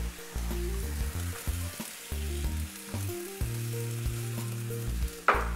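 Pasta cooking water sizzling in a hot nonstick wok while robiola cheese is stirred into it with a wooden spoon to melt it into a sauce.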